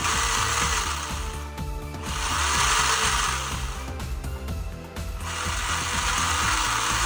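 Electric motor and drive shaft of a hobby RC car running on the bench, revving up in three bursts of a second or so each with short drops in between as the throttle comes on and off.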